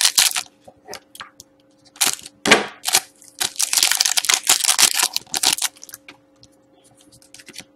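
Shiny foil wrapper of a hockey card pack being torn open and crinkled. A few sharp crackles come first, then a dense run of crinkling for about two seconds near the middle.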